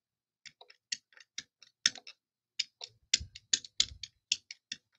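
Ink pad dabbed repeatedly onto a red rubber stamp mounted on a clear acrylic block: quick, irregular light clicks of the pad's plastic case tapping down, several a second, strongest near the end.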